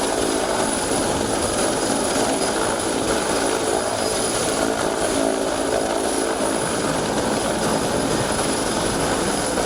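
Police combat helicopter hovering close by during a fast-rope deployment, its rotor and turbine engine running loud and steady.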